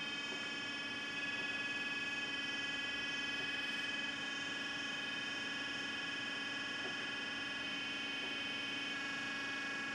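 Steady electronic buzzing tone with a low hum and several high overtones: the audio-tone signal driving a homemade laser galvanometer. The loudness drops slightly about four seconds in.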